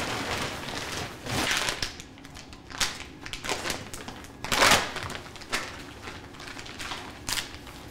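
Sterile surgical drape and plastic-and-paper sterile packs rustling and crinkling as they are unfolded and opened, in irregular bursts, the loudest a little under five seconds in.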